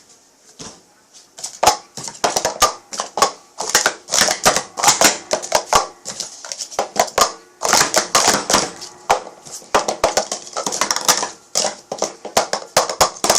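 Speed Stacks plastic sport-stacking cups being stacked and unstacked at speed: a fast, irregular run of sharp plastic clacks and clatters that starts about a second and a half in.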